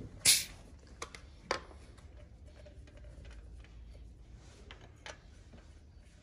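A compression gauge and its hose being handled on the cylinder head of a Toyota 4E-FE engine. A short hiss comes about a quarter second in, then a few light sharp clicks of the fitting and tools, about a second in, at a second and a half and near the end.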